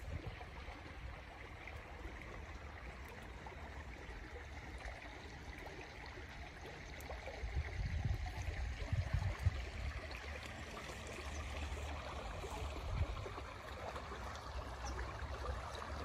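Shallow stream flowing steadily over stones, a soft rushing of water. Irregular low rumbles come and go about halfway through and again near the end.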